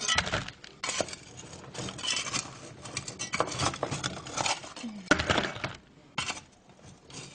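Hard, dry soil clods knocking and scraping against the sides of a plastic bin as they are handled by hand, in an irregular string of clunks and rustles.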